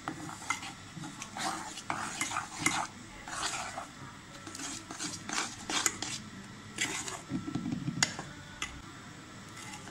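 A metal spoon stirring ground peanut and sesame powder into melted jaggery in a metal pot, with irregular, repeated scrapes and clinks of the spoon against the pot.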